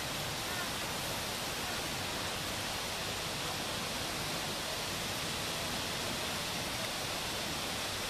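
Steady, even rushing hiss of running water, unchanging throughout.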